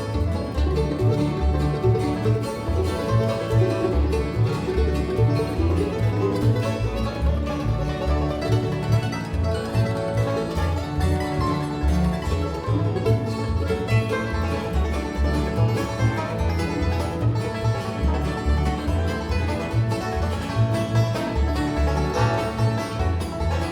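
Bluegrass band playing a fast instrumental breakdown, led by a five-string banjo, over a steady bass beat.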